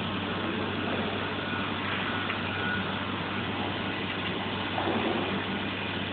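Steady electrical machine hum and hiss from running equipment, with a brief louder patch of handling noise about five seconds in.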